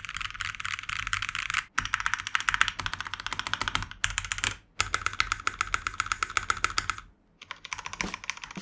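Fast typing on a Noir Timeless82 V2 75% mechanical keyboard fitted with ordinary, non-silent linear switches and a different keycap set. The keystrokes come in several quick runs with short breaks between them.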